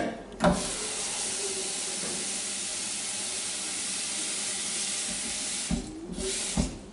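Kitchen tap running into a stainless steel pot of prawn shells, filling it with water for a fish stock: a steady rush that stops near the end, followed by a few clunks as the pot is handled.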